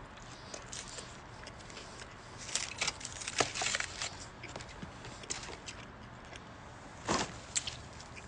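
Close-miked eating sounds: wet clicks and crackles of someone chewing a mouthful of a breakfast sandwich, in a cluster about a third of the way in and a few more, one louder, near the end.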